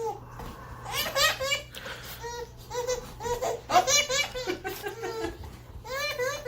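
A baby laughing in several short bursts of high-pitched giggles.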